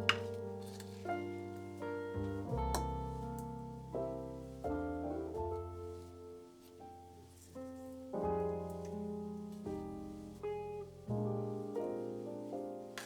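Background piano music: a slow series of struck chords that ring and fade.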